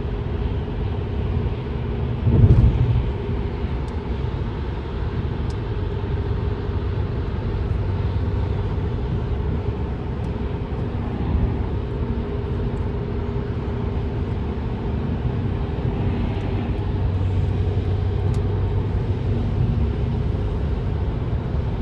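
Car driving at steady speed on a wet highway: a continuous low engine drone over tyre and road noise, with one louder thump about two and a half seconds in.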